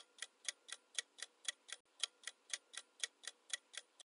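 Countdown timer sound effect: a clock ticking evenly, about four ticks a second, stopping just before the end.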